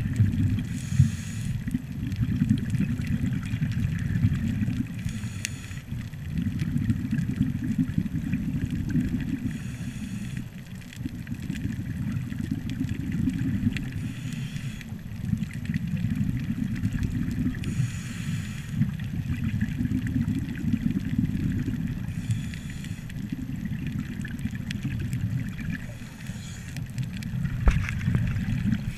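Underwater sound of a scuba diver breathing through a regulator, a short hiss of breath or bubbles about every four and a half seconds, over a steady low water rumble on the submerged camera.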